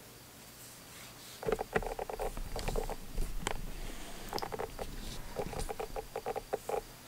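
Earcup of a JBL Tune 600BTNC wireless headphone brought right up against the microphone, giving choppy, tinny buzzing and scratching bursts that start about a second and a half in.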